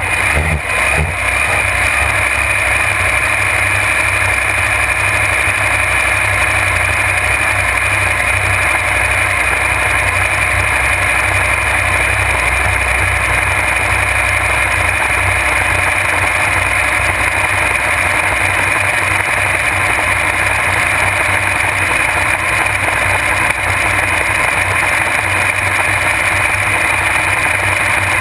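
1450 hp supercharged alcohol engine of a flatbottom drag boat running steadily under way. Its note is largely covered by a steady, wind-like whine, which the owner puts down to the gear drive or blower.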